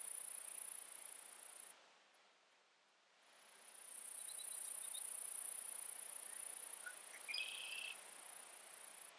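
High-pitched insect trilling, cricket-like and steady. It stops abruptly about two seconds in, swells back a second and a half later, and cuts off again near the end. A brief chirp sounds about seven seconds in.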